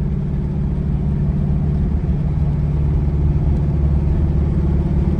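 A car engine running steadily, heard from inside the cabin as a low, even hum.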